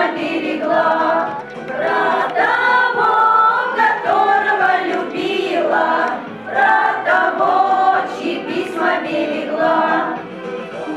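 A choir singing a song in Russian, in phrases a few seconds long.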